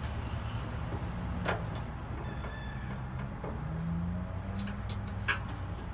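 A few short sharp metallic clicks as screws and the sheet-metal hopper panel of a pellet grill are handled, the loudest near the end, over a steady low engine rumble.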